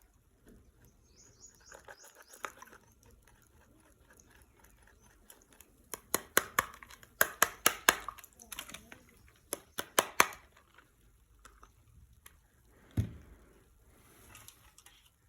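A plastic ice-pack bag being handled and torn open: a run of about a dozen sharp clicks and crackles in the middle, then a single dull thump near the end.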